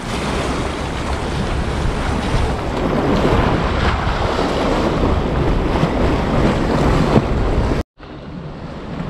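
Sea waves washing and splashing against concrete breakwater blocks, with wind buffeting the microphone. The sound cuts out suddenly about eight seconds in and comes back quieter.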